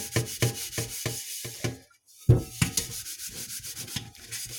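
A scouring pad with cleaning paste scrubbing soot off a sooty pot in regular back-and-forth strokes, about three a second. The scrubbing stops briefly just before two seconds in, resumes with one loud stroke, then goes on in quicker, lighter strokes.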